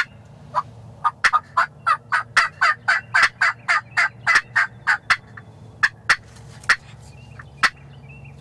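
Turkey calling: a fast run of about twenty sharp, loud notes over about four and a half seconds, followed by a few scattered single notes.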